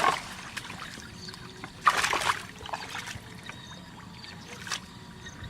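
Water sloshing and trickling, with a short splash about two seconds in and a smaller one near the end.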